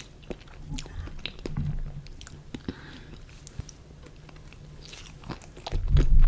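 Close-miked eating: biting and chewing with scattered crisp clicks, and a run of deep low thumps near the end that is the loudest part.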